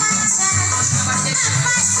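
Music for a burok dance: a shifting bass line under a melody, with a steady high rattle of percussion on top.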